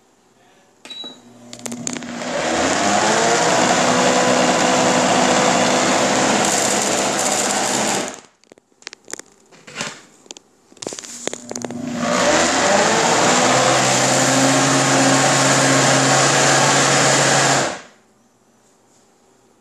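Homeleader 70 oz countertop blender motor spinning up and running at high speed, blending liquid, in two runs of about six seconds each, separated by a few seconds of clicks and knocks. The second run cuts off sharply near the end.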